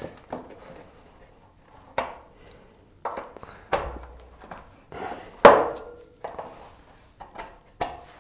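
Studded fat-bike tyre being worked onto its rim by hand, its rubber and bead knocking and thumping against the rim. About nine sharp knocks come at irregular intervals, the loudest about five and a half seconds in.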